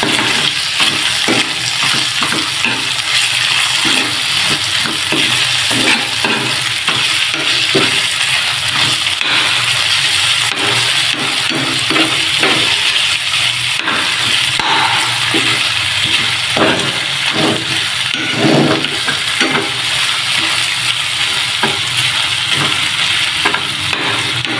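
Ground pork and string beans sizzling steadily in a metal frying pan while a spatula stirs them, scraping against the pan in many short strokes.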